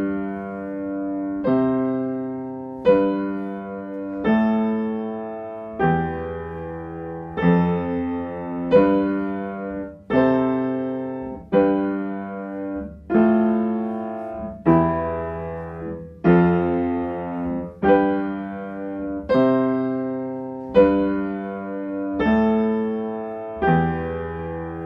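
Piano playing slow chords, a new chord struck about every second and a half and left to ring and fade.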